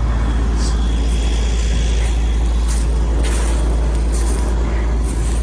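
Heavy wind buffeting the microphone: a steady low rumble with gusty hiss above it.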